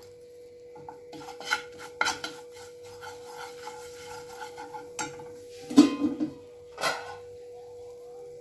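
A steel spoon scraping and stirring a foaming butter-and-flour roux in a non-stick frying pan, in several short scraping strokes; the loudest comes about six seconds in, with another about a second later.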